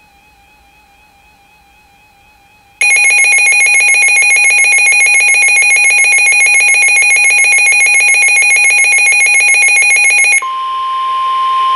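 Weather radio receiving an alert: after faint tones, a loud rapidly pulsing alarm beep starts about three seconds in and sounds for several seconds. It cuts off and the steady 1050 Hz weather radio warning alarm tone begins over receiver hiss near the end.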